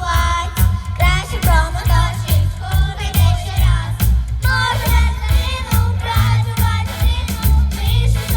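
Upbeat pop song with young voices singing the melody over a backing track with a strong, steady beat.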